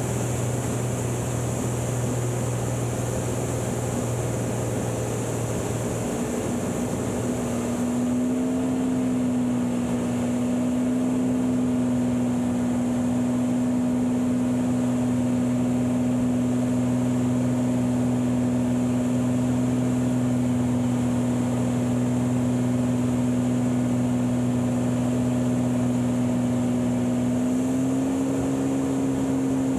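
Beechcraft Bonanza V35B's six-cylinder engine and propeller droning steadily in the cabin during flight. The pitch of the drone shifts and it grows slightly louder about 7 seconds in, and it shifts again near the end.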